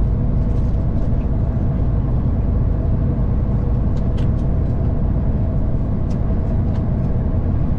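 Steady low engine rumble inside a truck cab, with a few light clicks over it about halfway through.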